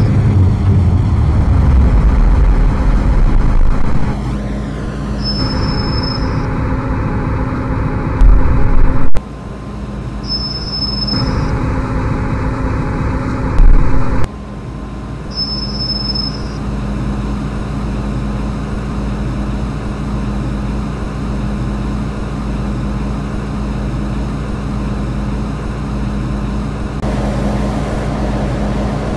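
An MTR M-Train electric multiple unit running: steady low rumble with a constant motor hum. Twice the rumble swells sharply for about a second, and the sound changes abruptly several times.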